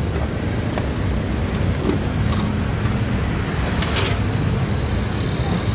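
Steady low rumble of road traffic passing, with a few light knocks and clicks of plastic containers being handled, one about two seconds in and another about four seconds in.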